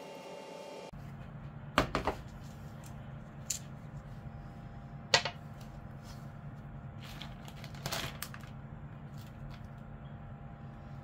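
Kitchen things being handled and set down on a tray: a handful of sharp clicks and knocks, the loudest a close pair about two seconds in and a single one about five seconds in, over a steady low hum.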